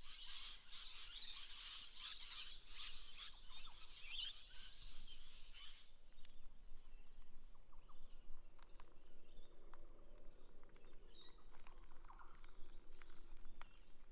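Birds chirping outdoors: a dense chorus of calls for about six seconds that cuts off suddenly, then scattered single chirps over a faint steady hum.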